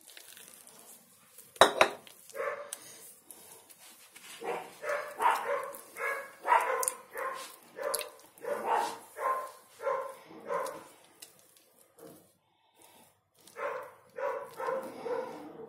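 A dog barking in runs of short yaps, about two a second, with a pause between the two runs. A single sharp knock comes near the start and is the loudest sound.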